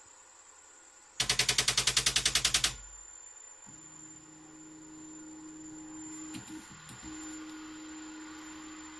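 3D printer's Z-axis stepper motors driven past the top of their travel, skipping steps against the stop in a loud, rapid rattle of about ten clacks a second for a second and a half; this deliberate overrun squares the bed's left side with its right. A steady stepper-motor hum follows about two and a half seconds in.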